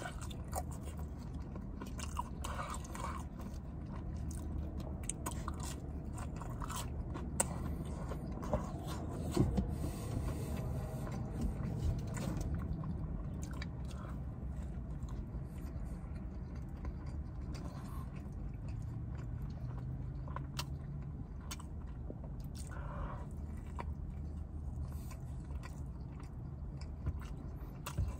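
Close-up mouth sounds of a man chewing and biting McDonald's french fries and a fish fillet sandwich: wet smacks and clicks, with a few louder bites in the middle. A steady low hum runs underneath.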